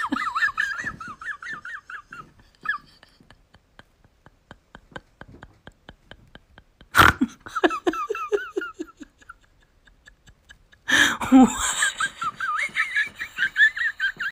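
A person laughing hard in high-pitched, breathy bursts. There are three bouts: one at the start, one about seven seconds in and one about eleven seconds in.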